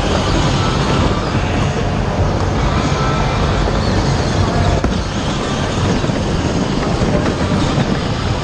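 Power Wheels battery-powered ride-on toy car driving, its electric motors and gearboxes running steadily.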